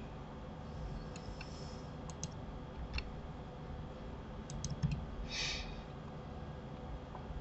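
Computer keyboard and mouse clicks, scattered and sparse, with a quick run of clicks a little before five seconds in. A short breathy hiss follows just after.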